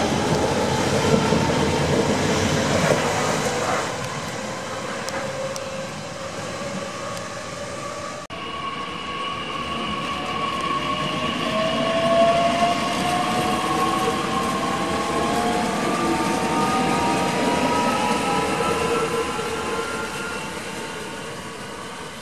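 A Berlin S-Bahn electric train runs past along the platform with a loud rumble. After a cut, a DB regional electric multiple unit accelerates away, its traction motors whining up in pitch as it fades into the distance.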